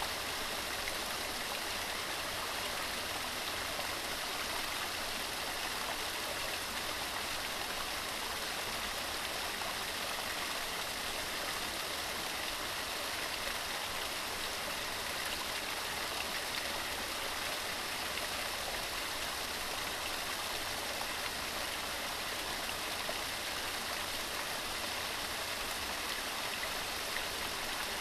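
Waterfall: water falling and splashing in a steady, unbroken rush, mostly hiss with little deep rumble.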